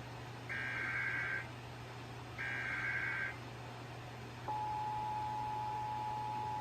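Emergency Alert System header tones: two short screechy data bursts, each about a second long and about a second apart, the end of the three-burst digital header. About four and a half seconds in, the steady attention tone starts and holds. It signals an alert about to be read, here a severe thunderstorm warning.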